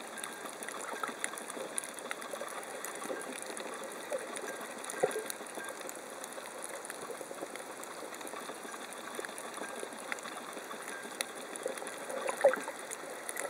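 Underwater coral-reef ambience: a steady crackle of many small clicks over a hiss, with two louder pops, one about five seconds in and a sharper one near the end.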